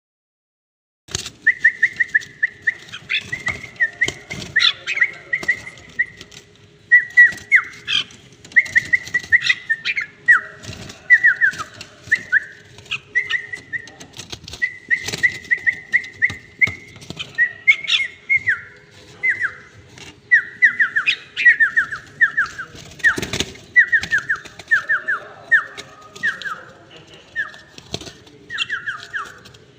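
Red-whiskered bulbul calling in quick runs of repeated sharp whistled notes, many dipping slightly in pitch, one run after another with short gaps, starting about a second in. Occasional sharp knocks and a faint steady hum lie beneath.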